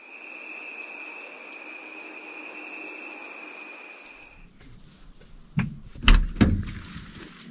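Insects calling: a steady high trill over a soft hiss, which changes about four and a half seconds in to a higher, shriller insect buzz. A few dull thumps come near the end.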